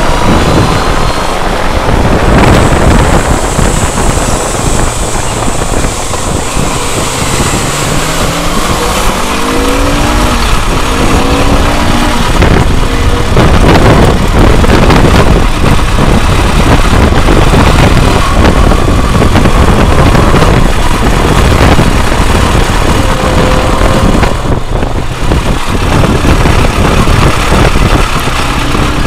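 Sport motorcycle riding at road speed, heard on board: steady wind rush over the camera microphone with the engine running underneath, its note rising a few times as it pulls through the gears.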